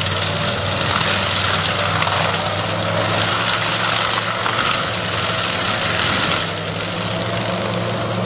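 Engine of a heavy wheeled land-clearing machine running steadily under load, a constant low drone with a broad hiss over it.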